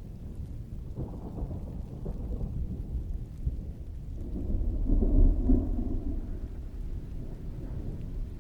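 Distant thunder rolling under steady rainfall. The rumble swells to its loudest about five seconds in, then slowly fades back into the rain.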